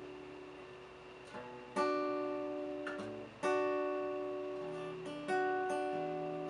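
Acoustic guitar chords played slowly: three main chords struck about a second and a half apart, each left to ring out and fade, closing the song.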